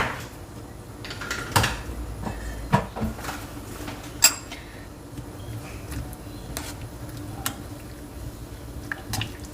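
Kitchen utensils and pots handled: a scattering of sharp knocks and clinks, about half a dozen, a second or so apart, over a faint steady hum.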